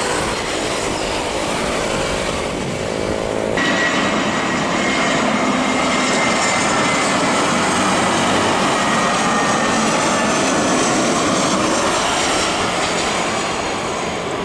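Jet airliner passing close on its landing approach: a loud, steady jet roar. From about four seconds in, a whining tone slides slowly downward as the aircraft goes by.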